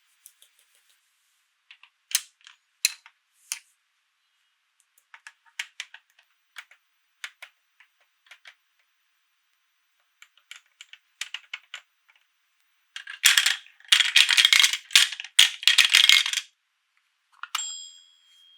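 Plastic toy pieces being handled: scattered light clicks and taps. About 13 seconds in comes a louder stretch of dense clattering lasting about three seconds, and near the end a short steady tone.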